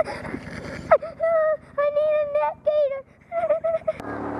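A child crying in drawn-out, wavering wails, several in a row with short breaks. About four seconds in it cuts to the steady running of the Kawasaki Teryx side-by-side's engine with wind noise.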